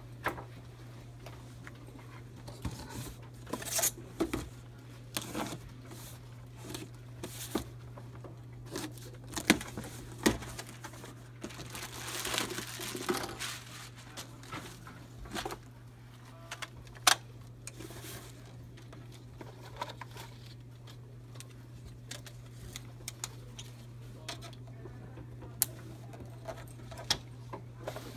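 Cardboard boxes and packing material being handled and opened: scattered knocks and clicks, with a longer stretch of rustling and tearing about halfway through. A steady low hum runs underneath.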